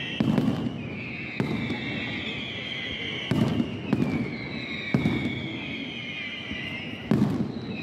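Aerial fireworks display: shells bursting overhead with about eight sharp bangs, several in quick succession three to four seconds in. Each bang trails off in a rumble, over a steady high hiss.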